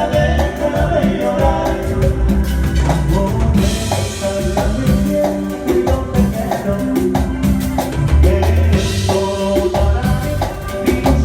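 Loud Latin dance music with singing, drums and percussion, played over a sound system during a sound check.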